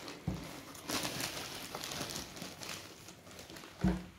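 Clear plastic garment bag crinkling and rustling as a woollen top is pulled out of it and smoothed on a table, with a brief louder sound near the end.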